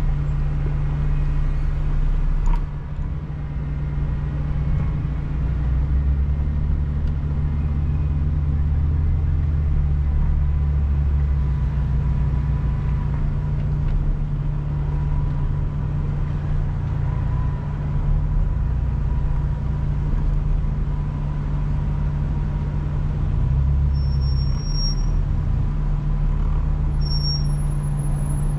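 Off-road vehicle's engine running with a steady low drone and a thin constant whine above it, with a sharp knock about two and a half seconds in.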